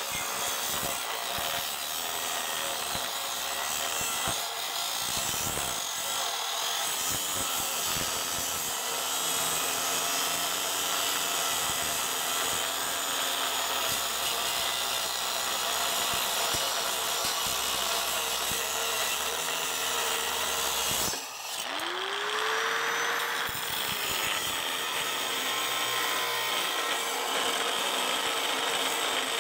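A $15 Harbor Freight angle grinder cutting through a cast-iron exhaust manifold flange, grinding steadily, its motor pitch wavering under load. About 21 seconds in it stops for a moment, then spins back up with a rising whine and carries on cutting.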